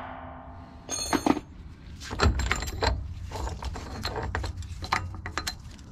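Irregular metal clicks and knocks as a drive shaft yoke and its bolts are worked loose by hand from a gearbox's companion flange, with a power tool winding down at the very start.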